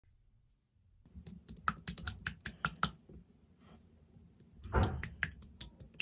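A plastic spoon working clear slime in a plastic tub: a run of quick sticky clicks and pops, then a louder squish just before the end.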